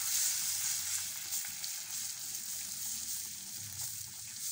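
Beaten eggs sizzling in hot melted butter in a nonstick frying pan as they are poured in and stirred with a silicone spatula. A steady high sizzle that slowly eases off.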